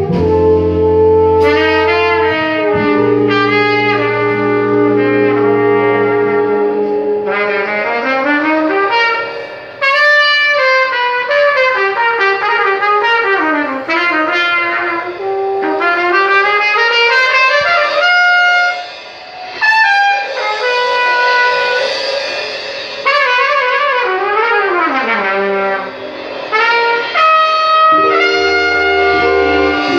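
Live jazz ensemble playing, led by a brass horn solo with several sliding notes, over long sustained low bass notes at the start and again near the end.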